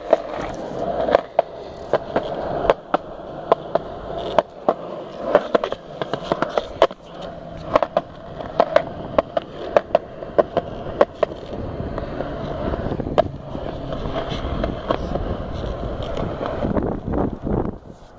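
Skateboard wheels rolling on a concrete sidewalk, with sharp clacks about once or twice a second as the wheels cross the joints between slabs. The clacks thin out in the last few seconds, leaving a steadier rolling noise.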